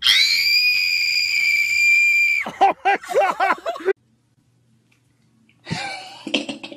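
A woman's long, high-pitched scream held steady for about two and a half seconds, then a quick run of shorter cries that cut off suddenly about four seconds in.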